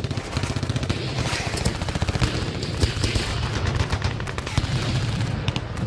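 Intro sound effect: a dense, continuous run of rapid cracks like automatic gunfire over a low rumble.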